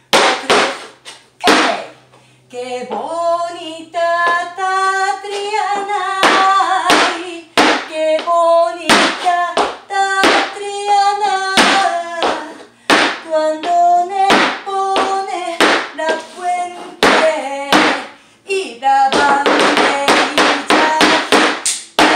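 Flamenco shoes stamping and tapping on a plywood floor in tango footwork, a run of sharp, rhythmic strikes throughout. From about two seconds in, a woman's voice sings a melody over the steps, fading out near the end as the strikes come thick and fast.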